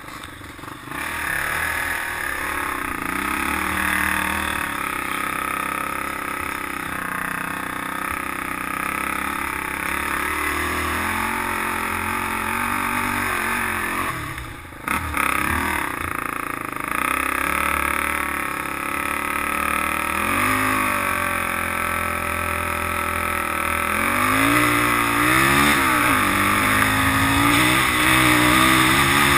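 Polaris Outlaw 500 quad's single-cylinder four-stroke engine running under way on a dirt trail, its revs rising and falling with the throttle. The engine drops off briefly about halfway through, then revs higher and louder near the end.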